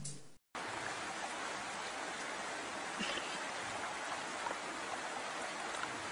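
A brief silent gap, then the steady rushing of flowing water, with a few faint ticks.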